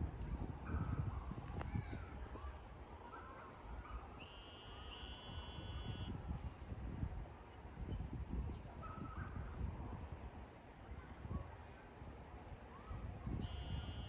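Outdoor ambience: gusty wind rumbling on the microphone, with scattered short distant calls and two longer high-pitched tones, one about four seconds in and one near the end.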